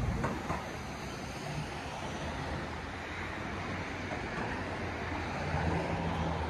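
Steady rumble of city road traffic, with a low hum that grows a little louder near the end.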